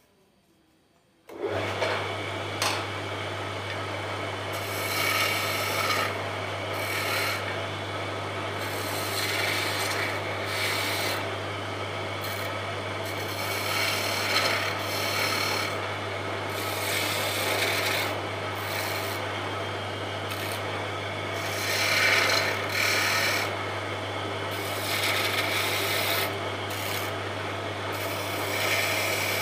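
Wood lathe running with a steady low hum while a hand-held metal tool scrapes against the spinning wooden spindle, a rough rasping that swells and fades. The sound starts suddenly about a second in.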